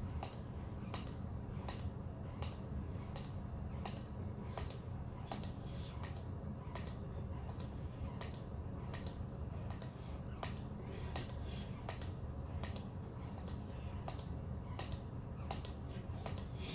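Electronic push-up counter under the chest during rapid push-ups: a quick, even run of sharp clicks, each with a short high beep, about two a second, over a steady low hum.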